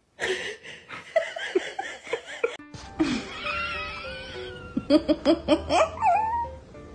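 People laughing, in short repeated bursts, with music in the background.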